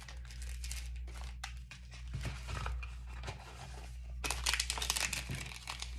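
Packaging crinkling and rustling as small jewelry items are handled, in irregular bursts that get denser and louder from about four seconds in.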